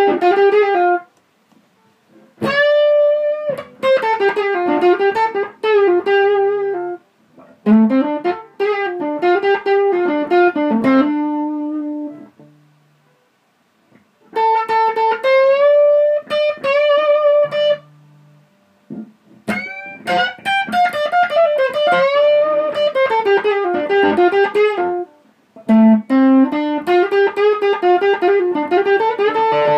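Epiphone Elitist 1966 Riviera semi-hollow electric guitar played through a Victoria 35210 tube amp and an MXR FET Driver pedal: overdriven single-note lead noodling with pitch bends, in phrases of a few seconds broken by short pauses.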